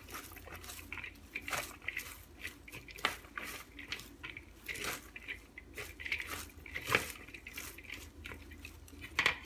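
Wooden chopsticks tossing a dressed shredded cabbage and carrot salad in a glass bowl: soft, irregular crisp rustling and squishing of the wet vegetables, with scattered sharper clicks.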